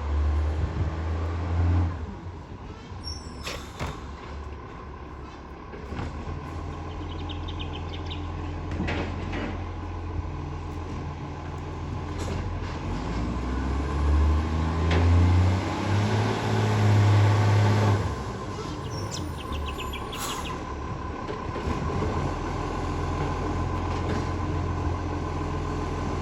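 Recycling garbage truck's diesel engine running, swelling louder for a few seconds in the middle, with a few sharp knocks along the way; the truck has an exhaust leak.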